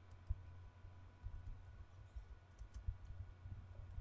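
Faint keystrokes on a computer keyboard, typing at an uneven pace as soft clicks and low thumps.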